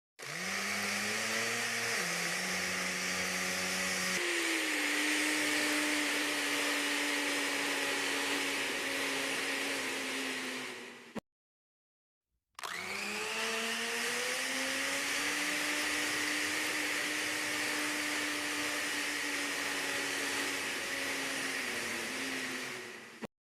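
Battery-powered portable mini blender with six blades, its motor running in two bursts of about ten seconds each with a short break between. Each time it starts, its whine climbs in pitch as the motor spins up, in steps over the first few seconds, then holds steady until it cuts off.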